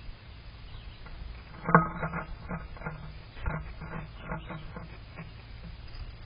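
A run of short, repeated animal calls, about two to three a second, starting a little under two seconds in.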